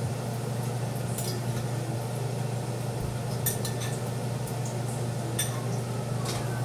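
Light clinks of a metal spoon against a pan and a small bowl, about four of them a second or two apart, over a steady low hum.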